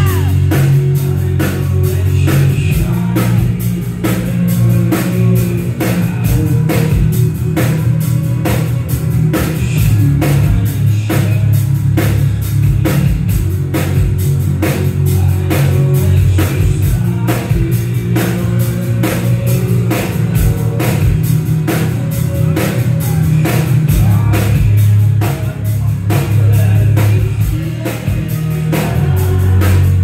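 Live rock band playing loud through a club PA: a drum kit keeps a steady, driving beat over heavy bass, with strummed acoustic guitar and a male lead vocal.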